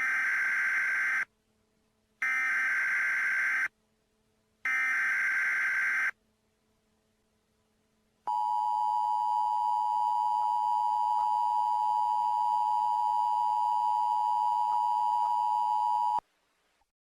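Emergency Alert System alert tones: three short bursts of screeching digital header data, about a second apart, then the steady two-tone attention signal, held for about eight seconds before cutting off suddenly.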